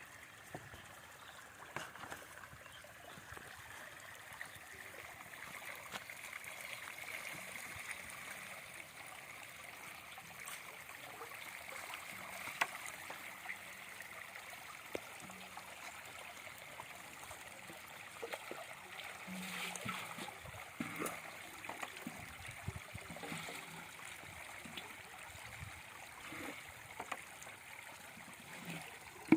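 Water trickling and flowing steadily, with scattered small splashes and knocks.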